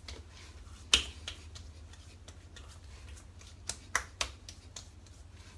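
Hands patting and slapping witch hazel onto a freshly shaved face. There is a sharp slap about a second in, lighter pats after it, and three quick slaps close together around four seconds in.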